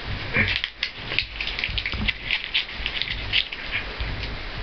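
Crumpled Post-it note paper crinkling in quick, irregular crackles as a kitten bites and paws at it, over a low steady hum.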